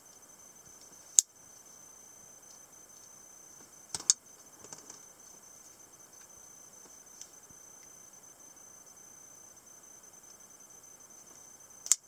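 Spring-loaded mechanisms of Italian stiletto automatic knives giving sharp metallic clicks as the blades are fired and locked: a single snap a little over a second in, a quick double click about four seconds in with a few lighter clicks after it, and another loud snap near the end. A faint steady high-pitched whine runs underneath.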